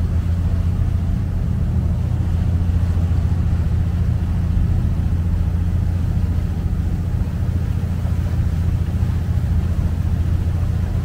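Engine of a river water bus running at cruising speed, heard on board as a steady low drone with a haze of noise above it.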